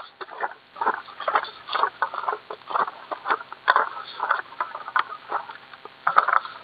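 Quick, irregular rustling and crunching of dry plant material, about two to three short rustles a second.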